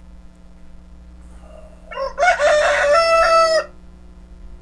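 A rooster crowing once, a single long call of about a second and a half starting about two seconds in, played back from a recorded audio file over a faint steady hum.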